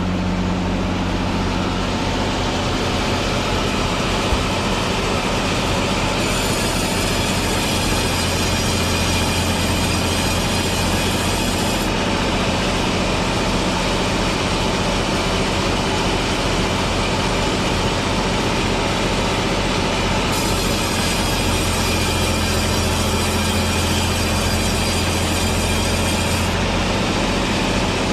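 Sawmill machinery running steadily: a constant low engine hum under the sawing noise. A high hiss grows brighter for two stretches of about six seconds each, one a quarter of the way in and one toward the end.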